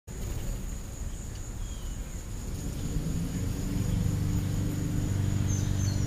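Outdoor ambience: a steady high-pitched insect drone, with a low engine hum that grows louder from about halfway through. A couple of faint short bird chirps come in early and near the end.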